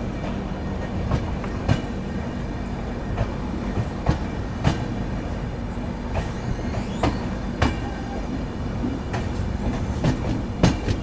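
Express passenger train running on the track: a steady low rumble, with sharp clacks of the wheels over the rails at uneven intervals.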